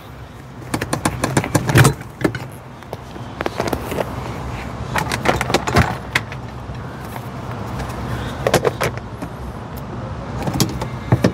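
Scattered clicks, knocks and light clatter of the seat base and the rubber-covered floor panels under a Land Rover Defender's front seat being handled and lifted out, over a steady low hum.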